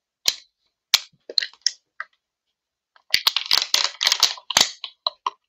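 Plastic drink bottle picked up and handled: a few scattered clicks, then a dense run of crackling and clicking from about three seconds in.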